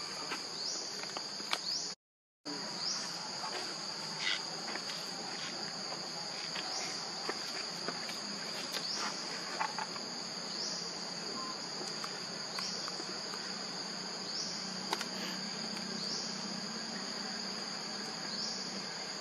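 Forest insect chorus: a steady high-pitched buzz with a short rising sweep repeating about every two seconds. The sound cuts out completely for a moment about two seconds in.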